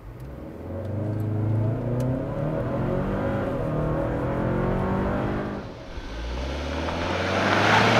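2022 Hyundai Santa Cruz's 2.5-litre turbocharged four-cylinder under hard acceleration, heard inside the cabin, its note rising for about five seconds. After a short dip the truck is heard from outside, coming closer, with engine and tyre noise swelling near the end.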